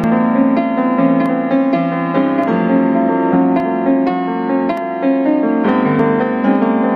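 Background piano music: a flowing line of struck notes over held chords.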